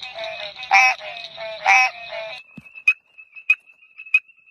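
Frogs calling. First come pitched croaks over a steady trilling chorus, with two loud croaks about a second apart. About halfway through, a different frog's call takes over: a thin, steady high tone broken by sharp clicks a little more than once a second.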